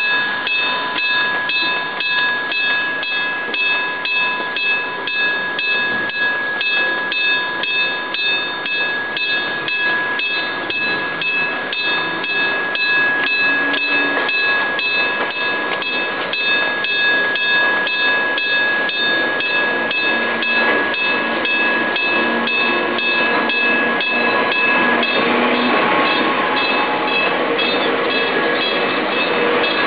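Electric bell of an old-style Enoden level crossing ringing in even, regular strokes. About 25 seconds in, the noise of an approaching Enoden train swells up under the ringing.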